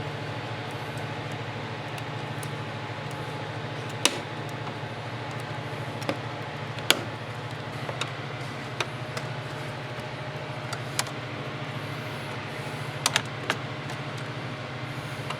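Scattered sharp clicks and clinks of hand tools and fasteners, about ten in all and unevenly spaced, while bolts and clips are taken off a car's bumper cover and fender area, over a steady low hum.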